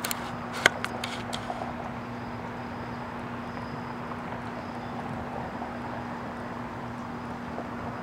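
Outdoor background noise with a steady low hum, and a few sharp clicks in the first second and a half.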